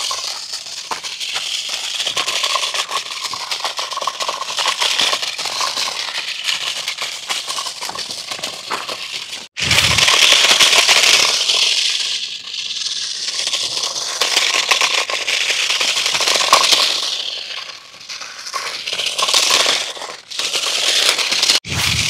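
A 1:16 scale 4WD RC rock car rattling and crackling as it drives and bounces over rough, stony ground. The sound breaks off abruptly about halfway through and again near the end.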